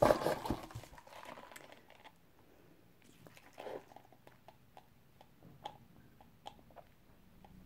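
A plastic straw pushed down through the lid of a paper soft-drink cup, scraping and clicking for about the first second. Then quiet sipping of Coke through the straw, with small mouth clicks and swallows.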